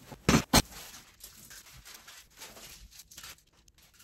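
Handling of a foil fringe curtain and its plastic packaging: two short, sharp noises close together about half a second in, then faint, scattered rustling and crinkling.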